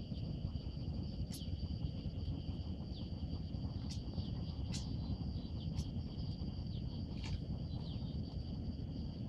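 Insects trilling steadily on two high pitches, with about half a dozen short, sharp bird-like chirps scattered through, some sliding downward, over a steady low rumble.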